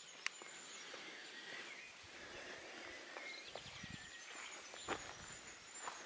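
Faint forest ambience with distant bird chirps, a sharp click shortly after the start and a few soft knocks later.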